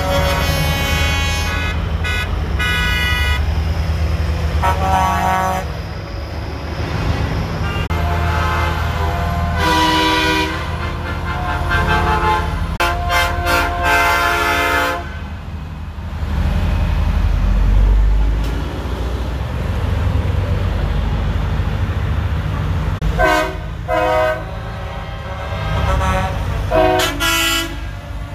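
Semi-truck horns blasting in a string of honks, each a chord of several tones, through the first half and again twice near the end. Underneath is the low rumble of diesel truck engines passing one after another.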